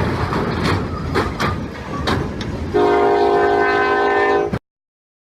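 Train rumbling along the rails with several sharp knocks. About three seconds in, a multi-note train horn sounds loudly and steadily for about two seconds, then cuts off suddenly.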